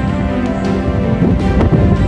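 Background music with steady held tones, over low rumbling wind buffeting the microphone.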